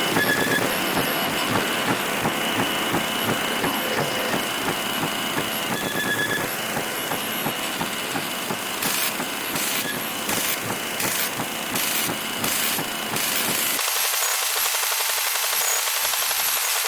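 Crackling, buzzing static from a television with a poor signal, with faint whistle tones in the hiss. About 14 seconds in the deep part of the noise drops away and the static turns thinner.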